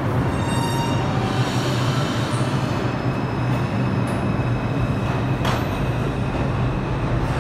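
Bombardier R142 subway train pulling out of the station, its cars rumbling along the rails with a high, steady whine above the rumble.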